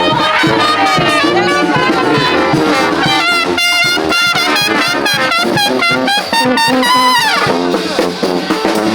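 Brass band playing live, trumpets and trombones to the fore, with a run of quick short notes in the middle and a long falling slide about seven seconds in.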